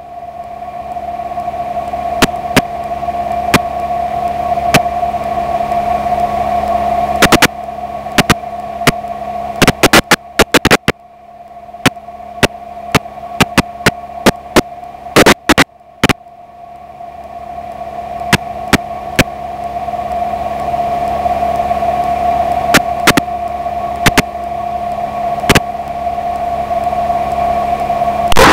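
Steady hum and hiss on the Tiger Moth's radio audio feed, with no speech on it. It swells in level twice and is broken by many sharp clicks.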